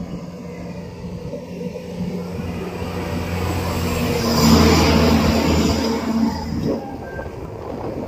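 A motor engine's steady hum, swelling about halfway through and fading again near the end.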